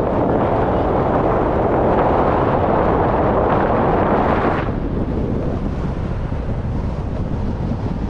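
Wind buffeting the microphone with a steady rushing rumble; the brighter part of the noise drops away suddenly a little past halfway, leaving a duller rumble.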